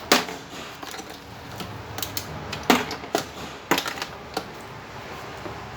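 Sharp, irregular plastic clicks and taps, about half a dozen, as small pliers work a knob off the plastic dashboard panel of a toy ride-on car.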